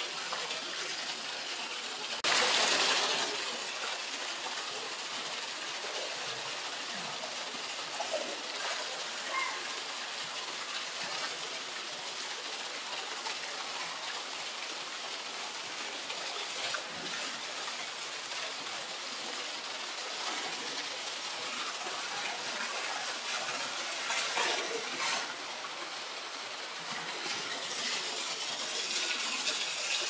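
A jet of water pours steadily into a pool, making a constant rushing noise. About two seconds in there is one loud splash as a polar bear cub plunges into the water, and there is more splashing later on and near the end.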